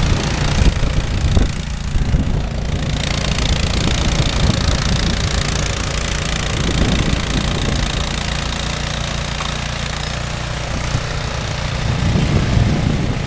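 Two-stage snowblower's engine running steadily while it clears snow.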